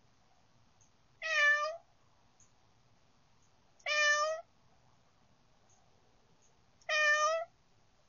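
Domestic tabby cat meowing three times, each meow about half a second long, spaced roughly three seconds apart.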